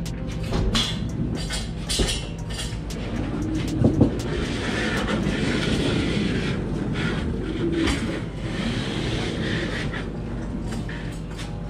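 Lorry running on the road, a steady low engine drone with frequent short rattles and knocks over it.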